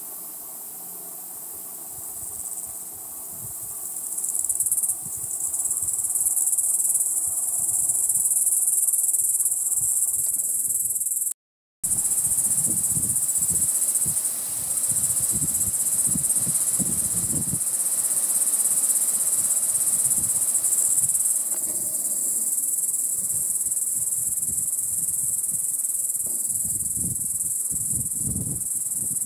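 Steady, high-pitched chorus of insects buzzing, growing louder about four seconds in and cutting out for half a second near the middle.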